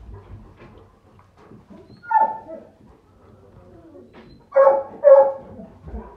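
A dog barking: a single bark about two seconds in, then two louder barks in quick succession near the end.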